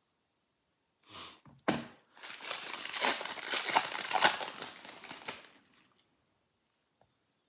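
Plastic wrapping from a Pokémon card tin's contents being crinkled and torn: a short rustle about a second in, then a few seconds of dense crinkling that fades away.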